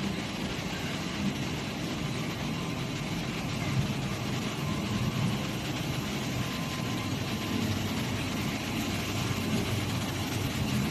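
Machinery of a polycarbonate sheet production line running steadily: a continuous low mechanical hum with a faint high whine, as the sheet is carried over rollers.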